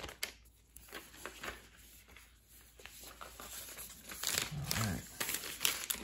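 The cardboard and paper packaging of an Apple Magic Keyboard being opened and handled: soft scattered crinkling and light taps, getting busier in the second half.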